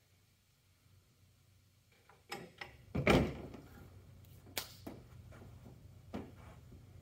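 A bare GY6 scooter engine being handled and turned over on a tabletop: a few sharp knocks starting about two seconds in, the loudest a heavy thump about three seconds in, then single knocks near five and six seconds.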